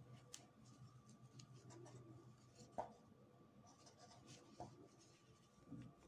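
Near silence with faint scratchy rustling of jute twine drawn through stitches with a crochet hook, and a few soft ticks.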